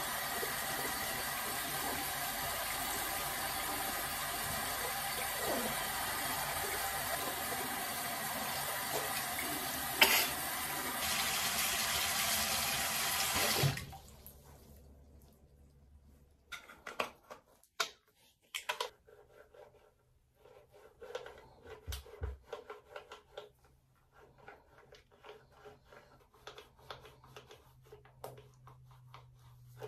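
Water running steadily from a bathroom tap or shower, shut off abruptly about 14 seconds in. After that come soft handling clicks and rubbing with a faint low hum.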